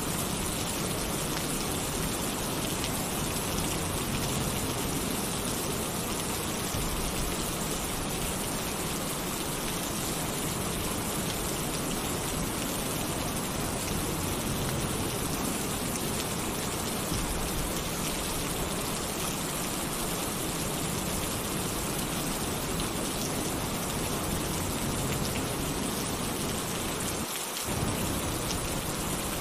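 Heavy rain falling steadily on a tin roof, a dense, even hiss of drops. The deep part of the sound drops out for a moment near the end, then comes back slightly louder.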